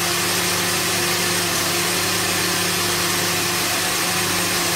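Countertop jug blender motor running at a steady speed, grinding dry oat flakes into flour.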